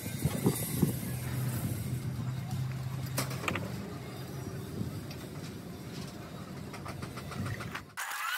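A vehicle engine running steadily, with a few sharp knocks in the first second and clicks about three seconds in; the sound cuts off suddenly near the end.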